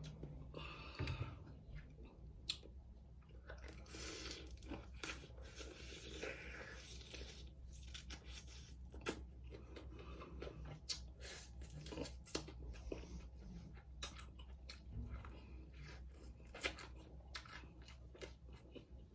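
Close-up chewing and biting into hard-fried chicken wings, with irregular crunchy crackles between quieter chewing.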